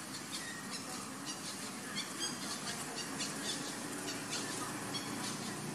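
High-pitched animal squeaks: short chirps repeated irregularly, a few each second.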